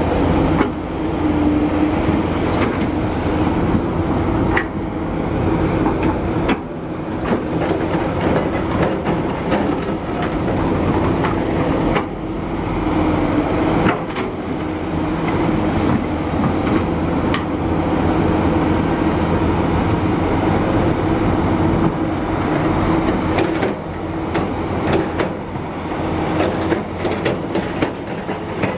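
Kobelco SK350 excavator working: its diesel engine runs steadily under load, with scattered clanks and knocks from the bucket and machinery.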